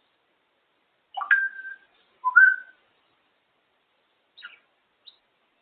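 African grey parrot giving two short whistles. The first sweeps up and then holds a steady note; the second starts lower and slides up. Two faint brief sounds come near the end.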